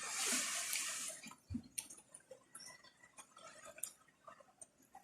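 A brief rush of running water for about the first second, then scattered light clicks and a dull knock.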